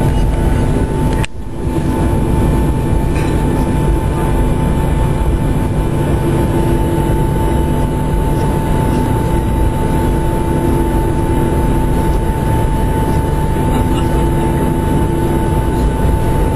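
Boeing 737-700's CFM56 jet engines running, heard from inside the passenger cabin: a loud, steady rumble with a steady whine on top. The sound dips briefly about a second in.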